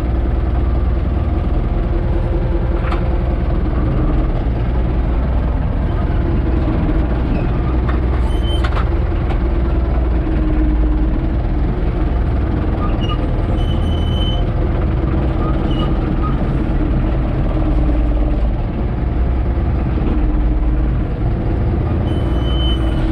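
Universal 650 tractor's diesel engine running steadily, with a couple of clicks and a few brief high squeaks.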